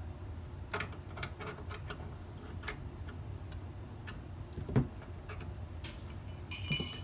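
Light plastic clicks and taps from hands working the humidifier's water feed tube and its plastic fitting, with one louder knock a little before five seconds and a brief, loud, high-pitched squeak near the end as the tube is worked loose.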